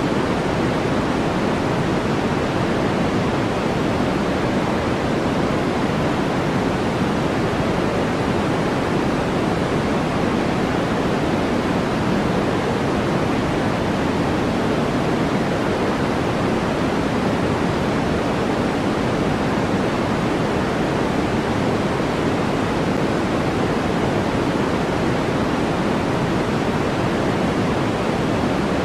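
Steady, unchanging synthetic white noise, an even hiss at constant loudness with its weight in the low and middle range, thinning toward the top.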